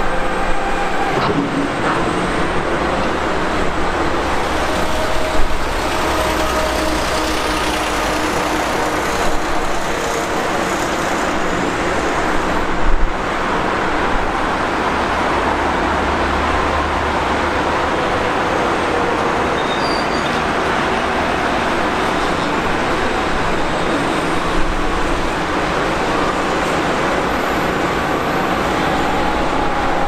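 Dense motorway traffic with cars and lorries passing continuously, their engine tones slowly rising and falling. A couple of brief knocks stand out, the clearest about 13 seconds in.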